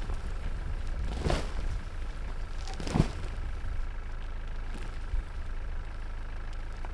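A vehicle running with a steady low rumble, with a dull thump about a second in and a sharper knock about three seconds in.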